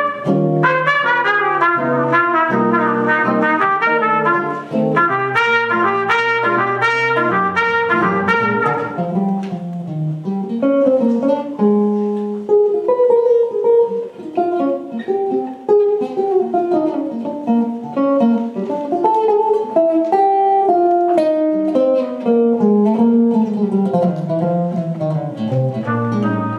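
Jazz blues played by a trumpet and an amplified archtop electric guitar. The trumpet plays over the guitar for the first several seconds, then drops out about nine seconds in, leaving the guitar playing single-note lines and chords.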